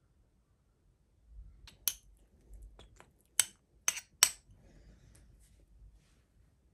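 A metal spoon clinking against a small ceramic bowl of wet cat food as the food is broken up, in a few sharp clinks with lighter taps between them, most of them bunched about three and a half to four and a half seconds in.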